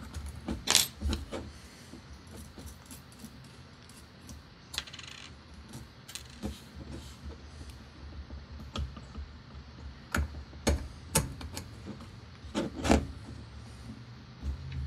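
Scattered clicks and light metallic clinks of small screws and a hex key being handled while fitting a carbon-fibre quadcopter frame's top plate, loudest about a second in and again around ten to thirteen seconds in.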